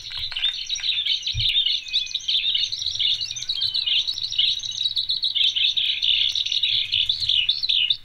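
Recording of a Eurasian skylark singing: a long, continuous stream of rapid, high warbling and trilling notes without a break.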